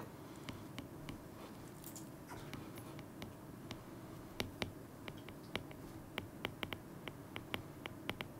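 Stylus ticking and tapping on a tablet's glass screen during handwriting: faint, sharp, irregular clicks that come thicker in the second half.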